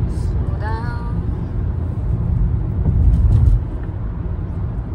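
Steady low road-and-engine rumble heard inside a moving car's cabin, swelling a little about three seconds in, then easing off. A brief snatch of voice comes in under a second in.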